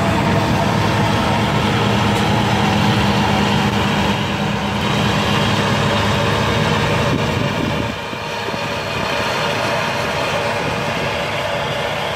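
A Türk Traktör TC5070 combine harvester running under load while cutting and threshing wheat: a steady engine and machinery hum with several constant tones, dropping a little in level about eight seconds in.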